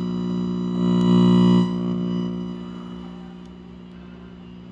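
Electrical buzz from an old tube colour television's speaker, swelling loud about a second in, then dying back to a fainter hum.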